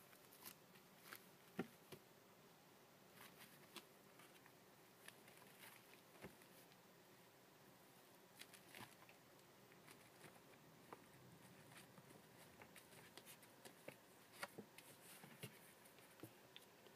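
Near silence broken by faint, irregular light ticks and rustles of a rough collie puppy's paws and claws moving over puppy pads and paper, with one sharper click about one and a half seconds in.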